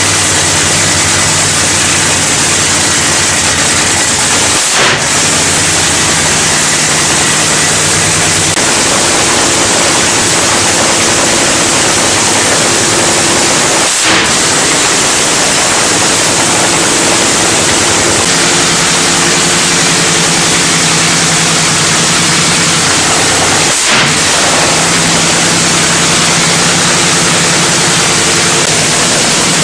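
Nitromethane-burning NHRA Funny Car engines, supercharged Hemi V8s, run very loud in pit warm-up bursts, the engine note stepping to a different pitch every several seconds. The clips are spliced together with abrupt cuts roughly every ten seconds.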